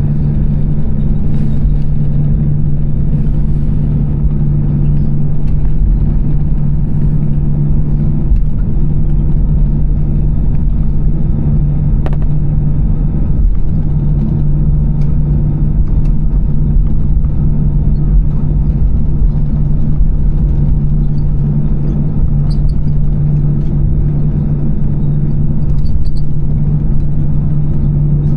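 Steady engine and airframe rumble inside the cabin of an Airbus A320-214 with its CFM56 engines running, a constant low hum that holds level throughout.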